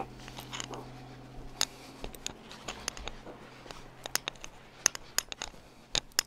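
Light, irregular clicks and taps from footsteps and handling while walking between rooms, over a faint steady low hum.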